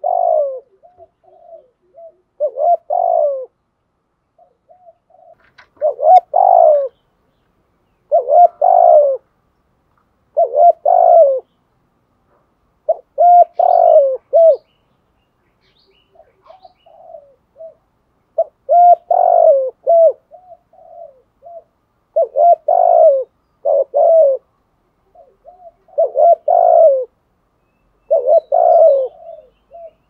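Spotted dove cooing: a phrase of several low coos, about a second long, repeated every two to three seconds, with softer single coos between phrases and a couple of longer pauses.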